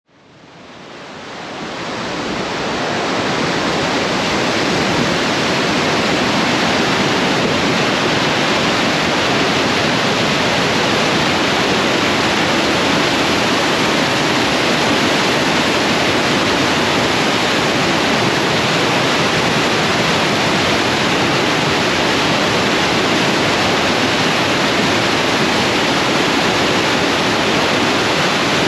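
Floodwater of the River Deel rushing under a bridge: a loud, steady rushing of turbulent water that fades in over the first few seconds and then holds even.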